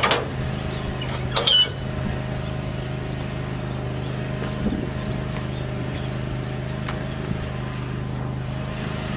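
Bobcat 753 skid steer loader's diesel engine running steadily. Sharp knocks sound right at the start and again about one and a half seconds in.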